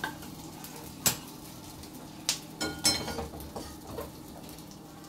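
Metal spatula knocking and scraping against a steel kadai while a lump of asafoetida fries in a little oil. There are several sharp clanks, a loud one about a second in and a cluster around three seconds.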